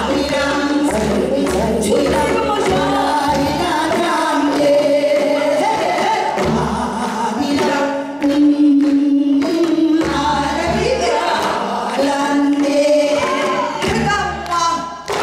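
Several women singing together through microphones in Korean traditional folk style, long held and bending notes layered over a steady low accompaniment.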